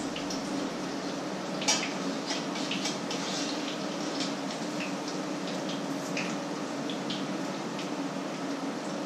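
Food frying in a pan on an electric stove: hot fat sizzling and spattering with many scattered pops, over a steady low hum. A sharp clink of the utensil against the pan about two seconds in.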